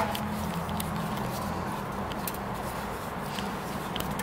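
A steady low hum from a running machine, with a few faint light clicks and taps.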